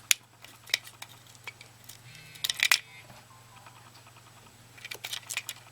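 Sharp plastic clicks and clatter from a cordless optical mouse's case and parts being unscrewed and separated. The clicks come in small clusters, about two and a half seconds in and again near the end, over a steady low hum.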